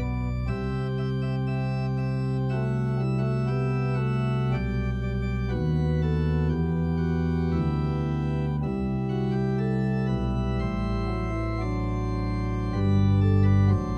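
Organ music: slow, sustained chords over deep held bass notes, the harmony changing every second or two.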